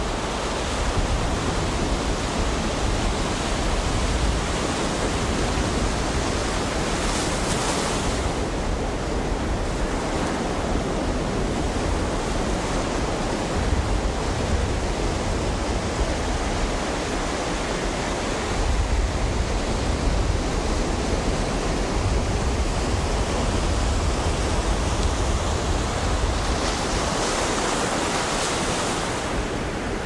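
Ocean surf breaking on a beach: a continuous rushing wash with a deep rumble underneath, swelling into louder hissing surges about seven seconds in and again near the end as waves break.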